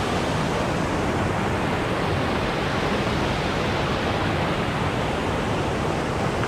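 Steady rushing noise, even and unbroken, with no distinct events.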